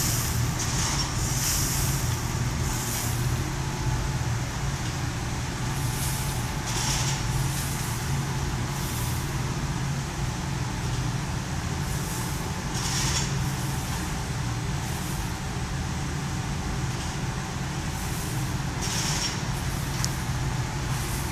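Probat GG150 coffee roaster running with a steady low hum of its fans and motors, with short hisses about every six seconds. Roasted coffee beans pour from the cooling tray's discharge chute into a plastic bin near the start.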